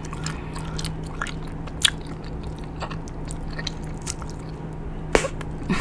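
A person chewing bubble gum with the mouth working it: scattered wet smacks and clicks, two louder smacks about two seconds in and near the end, over a low steady hum.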